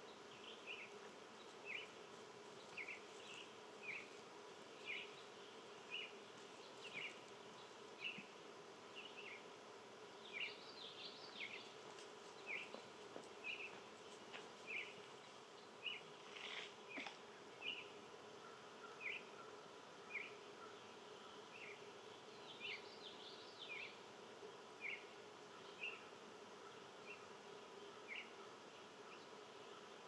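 A small animal's short, falling chirp call, repeated over and over about once a second, faint over a steady low drone.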